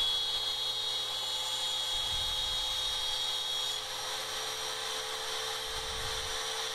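DeWalt DW660 spindle on a Shapeoko 2 CNC router running at speed, its straight-flute carbide end mill cutting the final pass through thin wood and into the spoil board. It makes a steady high whine, and some of the higher tones drop out about four seconds in.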